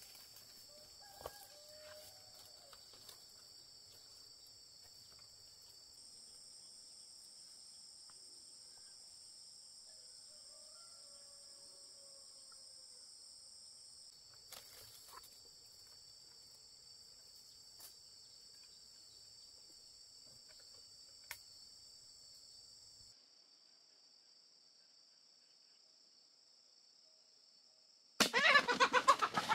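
Steady high-pitched drone of forest insects in two pitch bands, changing in strength a few times, with a few faint bird calls. Near the end comes a loud burst of rapid rustling about a second and a half long.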